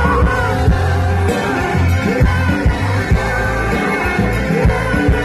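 Live rock band playing loud through a concert PA: guitars, bass and drums with a singer's voice, heavy bass under steady drum hits.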